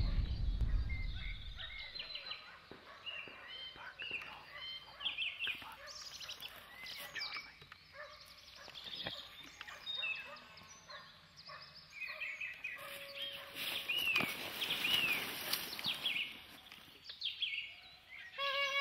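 A pack of hunting dogs yelping and baying at a distance, many short overlapping calls over faint outdoor noise.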